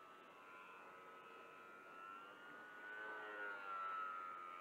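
A faint motor whine, rising slightly in pitch about two to three seconds in and then falling again.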